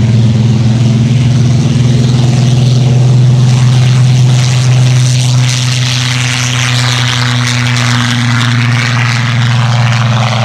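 Supermarine Spitfire Mk XIX's Rolls-Royce Griffon V12 engine and propeller at takeoff power as the fighter makes its takeoff run and lifts off, a loud, steady, deep drone.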